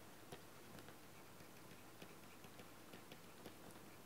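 Near silence with faint, irregular ticks of a stylus tapping on a pen tablet while handwriting.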